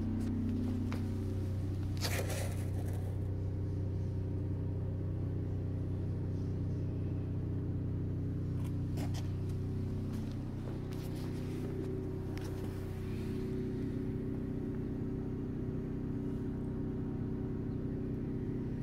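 Car engine idling steadily, a low even hum, with a few light knocks and rustles of handling near the car.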